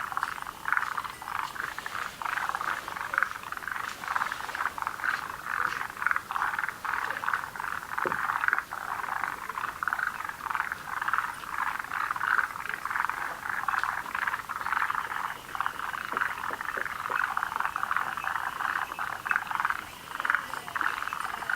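Breeding chorus of forest green tree frogs and Japanese mountain brown frogs: many overlapping calls made of rapid pulses, running on without a break.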